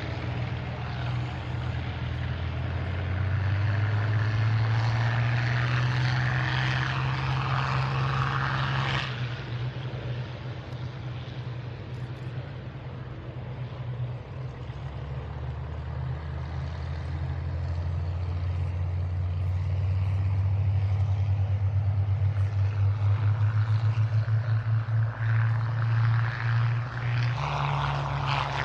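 Spitfire and Hurricane V12 piston aero engines at high power as the fighters take off and fly past, a deep steady drone. It falls away about nine seconds in, then builds again with a pulsing beat as several engines run together.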